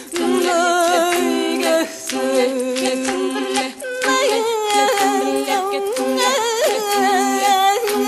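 A cappella vocal music: several voices sing together in held, wavering notes with no instruments heard.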